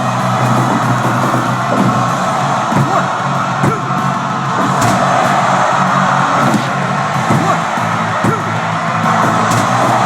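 Music with guitar playing steadily, with a few faint yells and short sharp knocks mixed in.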